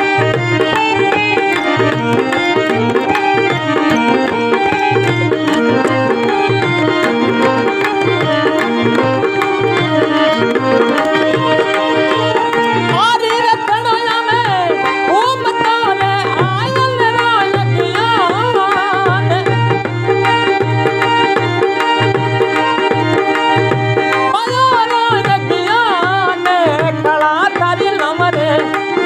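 Devotional folk music with a steady tabla-style hand-drum rhythm under held melodic notes; about halfway through, and again near the end, a bending, wavering lead melody comes in over it.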